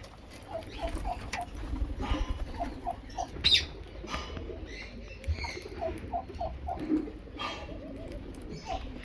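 Rose-ringed parakeet feeding: scattered sharp clicks and cracks of beak on food, the loudest about three and a half seconds in, with a few short runs of four or five quick, low, soft notes.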